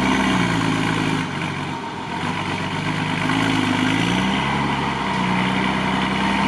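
Mercedes-Benz Unimog's engine working through deep mud: the revs fall away shortly after the start, stay low for a moment, then climb again about four seconds in and hold steady at a higher pitch.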